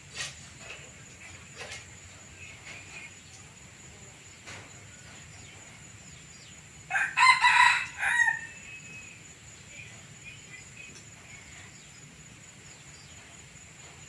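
A red junglefowl rooster crows once, a short crow of about a second and a half, starting about seven seconds in. Faint scattered calls from the foraging hen and chicks come and go around it.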